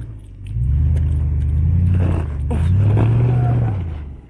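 Lexus LX470's V8 engine revving in two long pulls under load as the truck crawls over rock, with tyres crunching and kicking loose rocks in the middle; the revs die away near the end.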